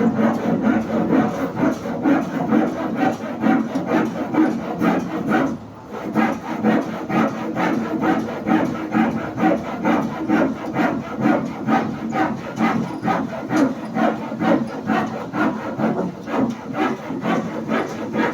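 Hand saw cutting wood in steady back-and-forth strokes, about three a second, with a short pause about five seconds in.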